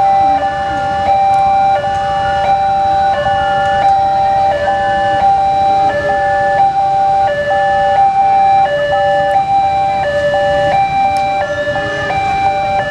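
Railway level crossing's electronic warning alarm sounding from the horn loudspeaker on the signal post: two tones alternating about every two-thirds of a second, warning that a train is coming and the barriers are down. Low road-traffic rumble underneath.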